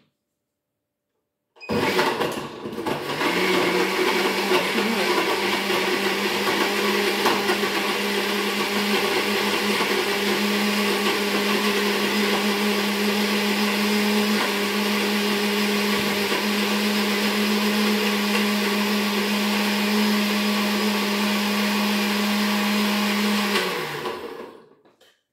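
Tefal countertop blender motor starting up about two seconds in and running steadily, blending a milk-and-cocoa smoothie, then winding down near the end as it is switched off.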